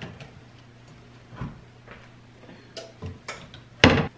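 Kitchen cabinet and a bottle being handled: scattered light clicks and knocks, then a louder clatter near the end, over a steady low hum.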